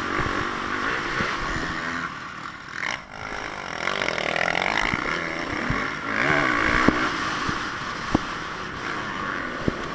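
Four-stroke single-cylinder engine of a Honda CRF450 motocross bike, ridden hard on a dirt track and heard from a helmet camera. The engine revs up and down with the throttle, dips briefly about three seconds in, then sweeps up and back down in pitch. A few sharp clicks come later, near seven and eight seconds and just before the end.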